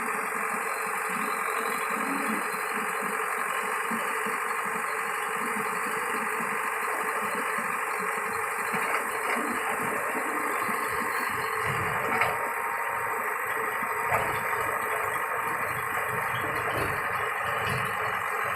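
Diesel engine of heavy machinery running steadily, with a couple of short knocks partway through.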